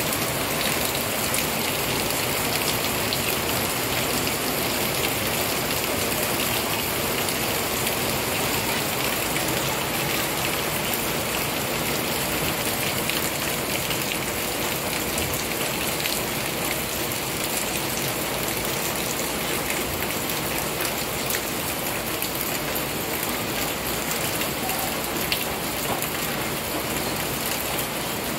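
Heavy rain pouring steadily, the drops splashing onto standing water on the ground.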